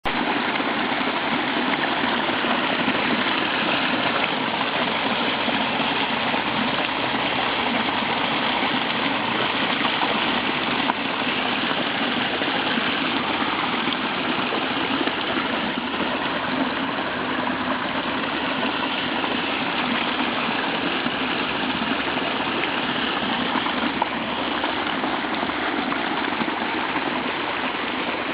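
Storm runoff from a heavy downpour pouring down a small waterfall, a steady unbroken rush of water.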